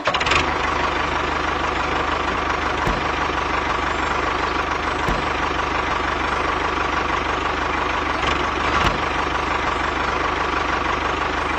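Engine idling steadily with an even knocking beat; it starts and cuts off abruptly.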